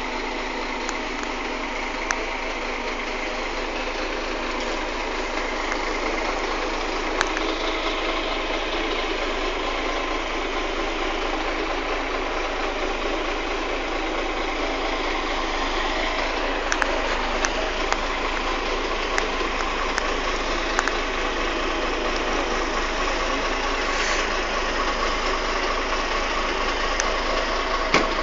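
Double-decker bus diesel engine running at idle as the bus manoeuvres slowly around the depot yard: a steady engine drone with a few sharp clicks scattered through it.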